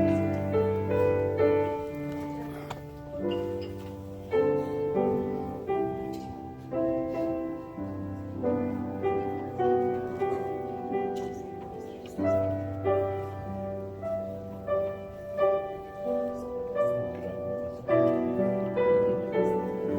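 Slow, gentle keyboard music: soft chords changing about once a second over long-held bass notes.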